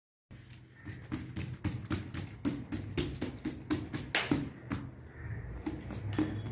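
Quick, irregular tapping and knocking, several taps a second, starting just after a moment of silence; the sharpest knock comes about four seconds in.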